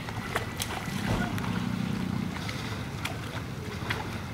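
Water sloshing around people wading in a pond, with several short, sharp splashes as leaping fish hit the water, over a low steady rumble.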